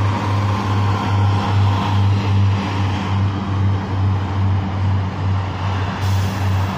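Class 144 Pacer diesel multiple unit idling at the platform: a steady low diesel throb that pulses about three times a second, with a faint whine near the start that fades away.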